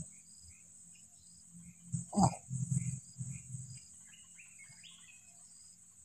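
Insects trilling steadily at a high pitch. About two seconds in comes a short, loud grunt that falls in pitch, followed by a second or so of low rumbling. Faint chirps sound in the background.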